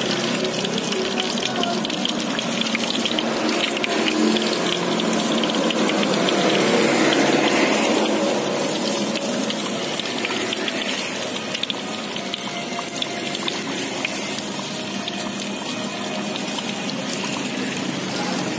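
Samosas deep-frying in a wide wok of hot oil: the oil sizzles and crackles steadily, growing a little louder around the middle.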